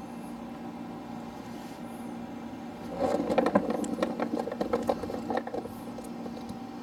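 Rustling and clicking handling noise, like a camera being picked up and set down, from about three seconds in until about five and a half seconds, over a steady low hum.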